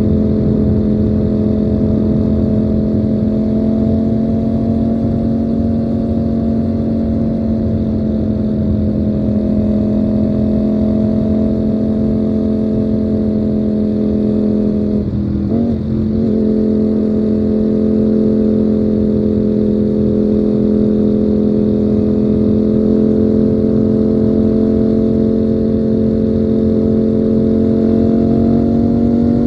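Ducati Panigale V4's V4 engine running at steady revs while riding, with a brief break in its tone about halfway through and the revs climbing near the end.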